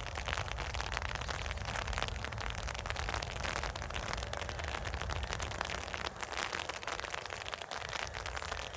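Steady rain pattering, a dense crackle of close raindrop ticks over a low rumble.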